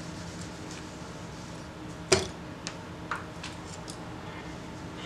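A few light metal ticks and one sharp knock about two seconds in, from a valve spring compressor and a small Honda CT90 cylinder head being handled while the valve keepers are fitted.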